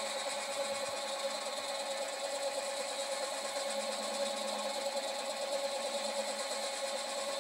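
Mini lathe running under power, its motor and gear train whining steadily while a tool turns a small brass part held in the spinning chuck.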